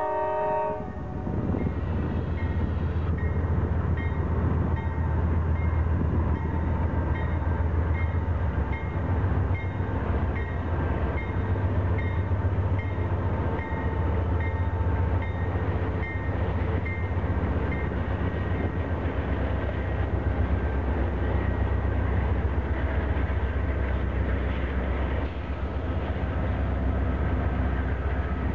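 Norfolk Southern freight train passing close by, its GE diesel-electric locomotives running with a heavy low rumble and wheels rolling on the rails. The locomotive horn cuts off about half a second in. A grade-crossing bell dings about twice a second through the first half.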